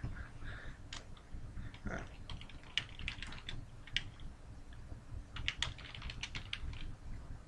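Typing on a computer keyboard: scattered keystrokes, with a quick run about two and a half seconds in and another from about five and a half seconds in.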